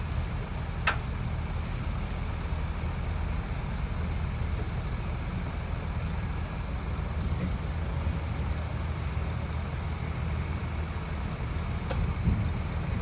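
Heavy diesel earthmoving machinery running steadily with a low rumble, with a sharp click about a second in and another near the end.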